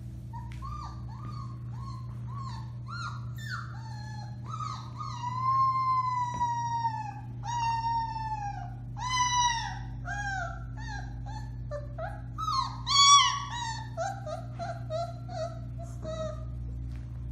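Four-week-old Alaskan Malamute puppy howling: short yips build into several long, falling howls, the loudest about three-quarters of the way through, then trail off into a run of short yelps near the end. A steady low hum lies underneath.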